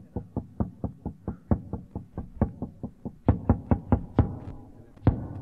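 Background music: a fast, even beat of sharp knocking percussion, about five or six hits a second, with harder, louder hits from about three seconds in.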